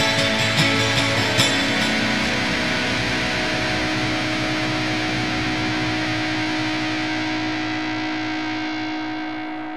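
Music: distorted electric guitar with a few sharp strokes in the first second or so, then a chord left ringing that slowly fades toward the end.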